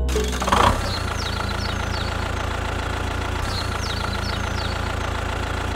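Stationary diesel engine idling with a steady, even chug after a brief louder burst in the first second. Short high falling chirps repeat over it.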